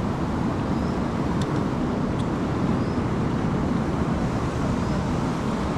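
Steady rushing roar of a fast-flowing river, even throughout, with a few faint ticks.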